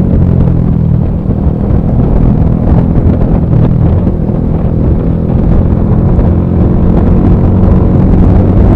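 A Bajaj Pulsar 220F's single-cylinder engine with an aftermarket full-system exhaust, riding steadily at speed and heard through an action camera's built-in microphone, with heavy wind buffeting on the mic over the engine note.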